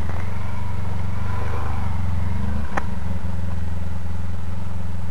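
Motorcycle engine idling with a steady low drone, with one sharp click about three seconds in.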